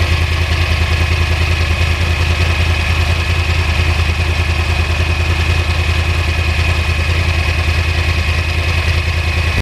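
2009 Yamaha R1's crossplane-crank inline-four engine idling steadily, with an even low pulsing beat and a constant high thin tone over it.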